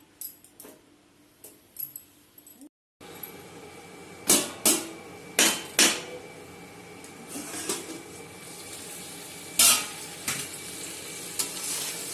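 A cooking utensil knocks and scrapes against a pan as ash gourd greens are stirred, giving about six sharp clinks over a steady sizzle. The sizzle means the added water has nearly cooked off and the curry is almost done. The first few seconds are quieter, with only faint clicks.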